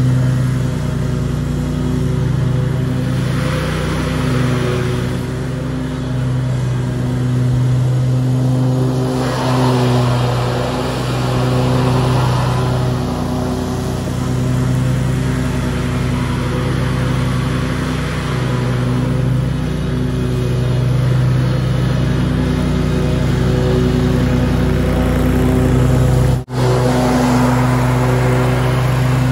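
Scag Tiger Cat II zero-turn mower running steadily while mowing, its engine and deck noise swelling and fading as it travels back and forth across the lawn. The sound cuts out for a split second near the end.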